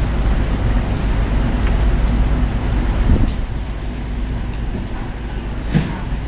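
Steady low rumble and hiss of background room noise, with a few short clicks of chopsticks and a spoon against a noodle bowl, about three seconds in and again near the end.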